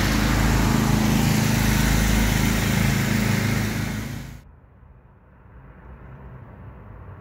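Portable generator engine running steadily at close range, an even, loud drone. A little over four seconds in, the sound cuts off abruptly to a much fainter, muffled distant hum.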